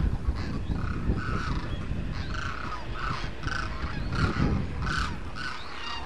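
A flock of demoiselle cranes calling: many short, rough, croaking calls overlapping in quick succession, about two a second, over a low rumble.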